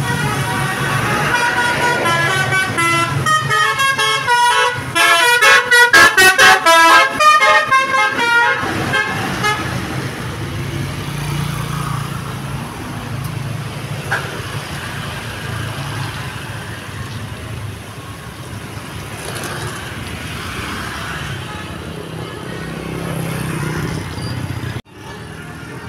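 Bus basuri musical air horn (telolet) playing a quick tune of changing notes for about ten seconds, loudest in the middle. After it, the bus's engine runs under a steady hiss, and the sound cuts off abruptly near the end.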